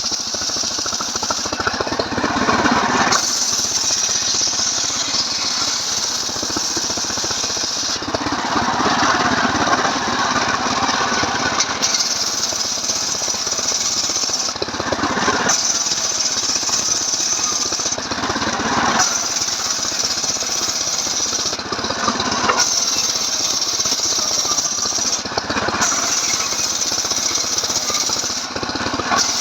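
Stihl MS 381 chainsaw engine running steadily under load, driving a homemade saw rig that rips timber. The sound changes every few seconds as the cut loads and eases.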